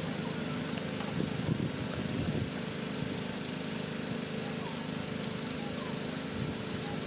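Steady mechanical hum of a small engine running, with a few brief louder bits about a second or two in.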